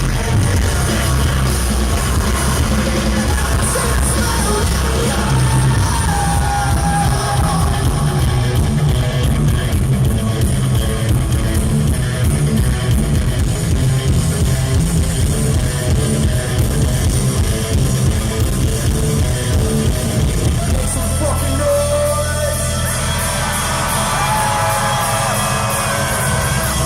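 A punk rock band playing live through a concert PA: loud guitars, bass and drums with sung and yelled vocals. Near the end the bass and drums ease off, leaving guitar and voice more in front.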